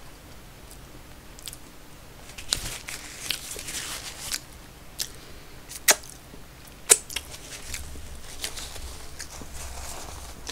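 Close-miked mouth sounds of eating: chewing with scattered sharp lip smacks and clicks, two of them much louder than the rest.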